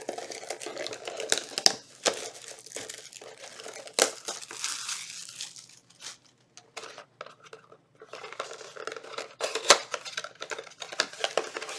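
Crinkling and tearing of packaging as a small trading-card box is torn open and its contents handled: irregular rustles and clicks with a few sharper snaps, quieter for a moment in the middle.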